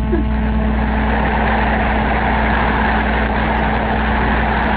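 Steady rushing noise with a constant low hum and no voice: the background of an old phone voicemail recording being played back.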